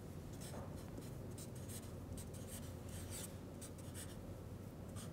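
Felt-tip marker writing on a paper flip chart: a run of short, faint scratchy pen strokes as a word is written out.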